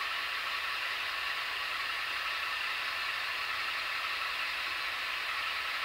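Tsunami sound decoder in an HO-scale Atlas GE U-boat diesel model, playing the GE prime mover's engine sound through the model's small speaker as the locomotive runs slowly: a steady, even engine sound.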